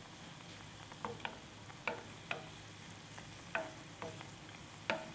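Oil bubbling and sizzling steadily as glutinous rice doughnut balls deep-fry in a stainless steel pot. A wooden spoon stirs and rolls them, knocking lightly against the pot several times.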